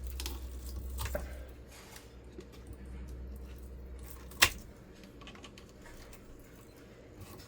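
Small clicks and scraping of a pulling tool working the copper winding out of a ceiling fan motor, over a low rumble that stops with one sharp loud click about four and a half seconds in.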